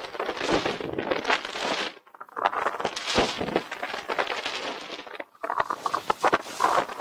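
Snowboard edges scraping over firm, thin snow during turns, a crackly hiss in three long stretches that break off briefly about two and five seconds in.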